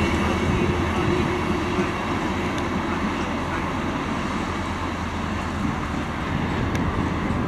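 Class 68 diesel-electric locomotive running on the move through the station. Its low drone eases about three seconds in, with heavy wind noise on the microphone.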